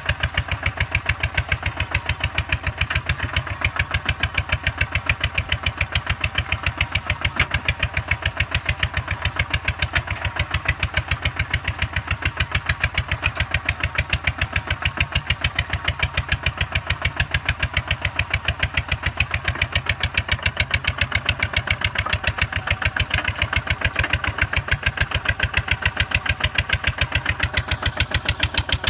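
Single-cylinder diesel engine of a two-wheel walking tractor running steadily under load while it pulls a plough through rice-field mud, a fast, even chugging beat that holds the same speed throughout.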